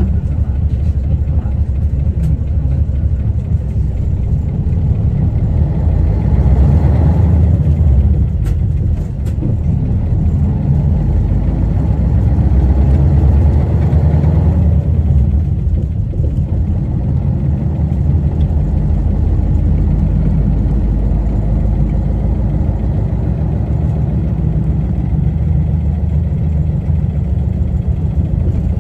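Isuzu Erga KL-LV280L1 city bus's diesel engine running on the road, heard from on board as a heavy low rumble. The engine note swells twice, about a quarter and about half of the way through, dropping back after each, then settles to a steadier running note.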